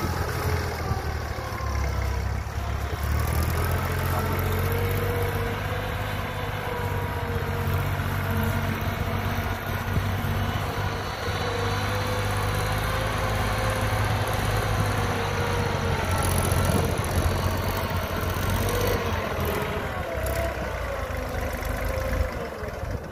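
Diesel farm tractor engine running hard and steady at high throttle, hauling a loaded trailer through soft, wet ground. It eases off near the end.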